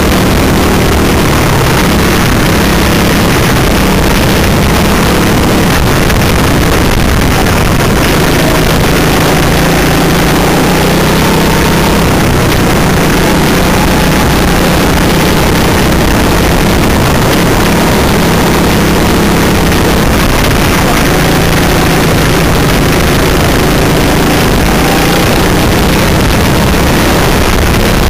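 Go-kart engine running hard, recorded from a camera mounted on the kart itself: a loud, unbroken engine drone whose pitch drifts up and down through the corners, under a constant hiss.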